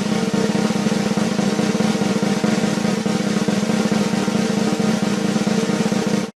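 A drum roll: very fast, even strokes held at a steady level, cut off abruptly near the end.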